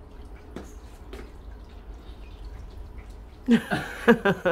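Quiet room with a low hum and a few faint ticks, then a person's voice breaks into short, loud bursts of laughter about three and a half seconds in.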